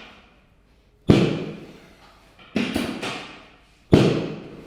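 Three sharp thuds about a second and a half apart, the middle one doubled, each fading out over most of a second.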